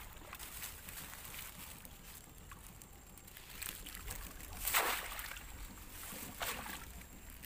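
Water splashing and sloshing as a bamboo polo plunge basket is lifted and pushed down into shallow water, with a few short splashes, the loudest a little past halfway through.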